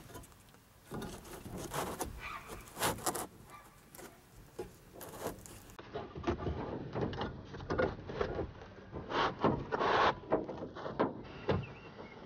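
Handling noise: irregular rustling, clicks and knocks as a bundle of taped wires is pushed up into a square opening in a vehicle's fabric headliner.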